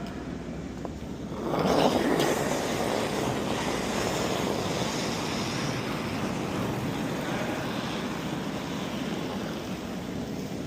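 Curling stone running down the ice with brooms sweeping in front of it: a steady rushing hiss that starts about a second and a half in.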